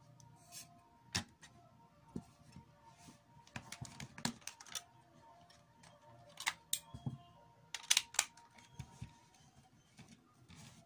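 Irregular clicks and knocks of hard plastic parts being handled on an opened portable CD player, as the disc is lifted off and the casing and pieces are picked up and set down; a close pair of louder knocks comes about eight seconds in.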